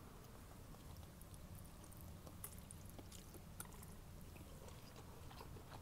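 Near silence: faint low room hum with a few soft, brief clicks.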